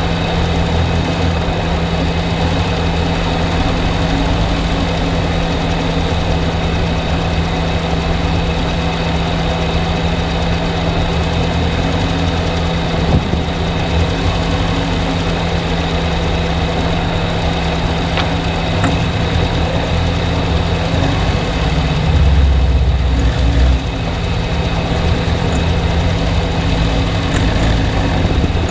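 Car engine idling steadily, the engine whose knock the owner is recording. Its low rumble swells for a couple of seconds about 22 seconds in.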